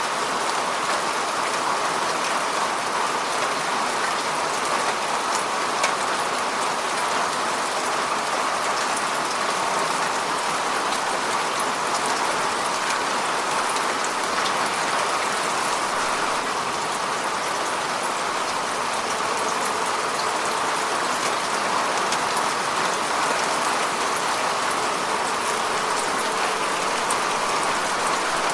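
Steady rain falling on the surface of a lake, a continuous patter with many fine drop splashes.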